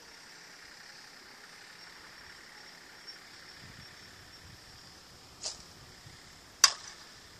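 A pop-toss trainer launches a softball with a short, softer pop, then about a second later a Resmondo slowpitch softball bat strikes the ball with a single sharp, loud crack, the loudest sound by far.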